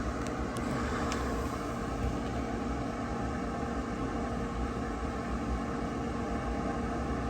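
A steady mechanical hum over a low rumble, with a few faint clicks in the first second.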